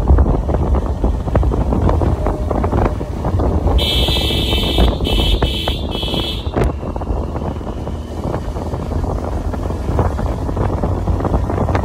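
Wind buffeting the microphone with a low rumble from a moving scooter. About four seconds in, a shrill high-pitched sound breaks in for about three seconds in several short pieces.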